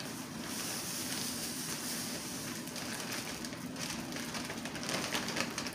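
Kosher salt poured from a small plastic bag into a zip-top bag of ice cubes: a steady grainy hiss of crystals showering onto ice and plastic, with light crackles, starting about half a second in and easing off near the end.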